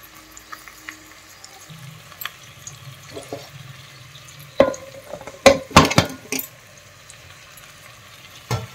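Vegetables frying faintly in a pot, with a metal ladle or spoon knocking against the pot a few times as the mix is stirred: a cluster of sharp clinks about halfway through and one more near the end.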